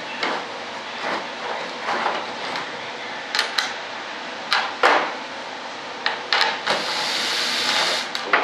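Knocks and clicks as a wooden rudder panel and tools are handled on a workbench. Near the end a cordless drill runs steadily for about a second and a half, backing a screw out to take the rudder apart.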